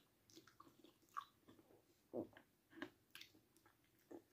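Faint chewing and mouth noises of someone eating a mouthful of spaghetti bolognese: a few soft, irregular smacks and clicks.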